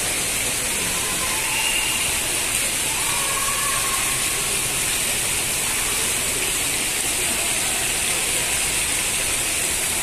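Indoor fountain jets splashing into a shallow pool, a steady hiss of falling water.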